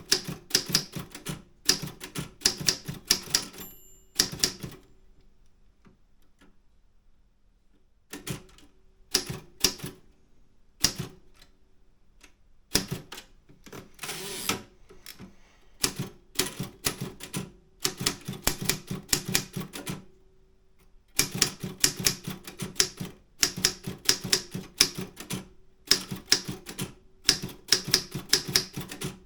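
Optima M10 manual typewriter being typed on: runs of sharp typebar strikes in uneven bursts, with pauses, a stretch of slower strokes and a longer rasping sound around the middle.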